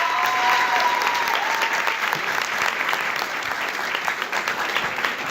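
Audience applauding, with a long drawn-out cheer over it in the first two seconds.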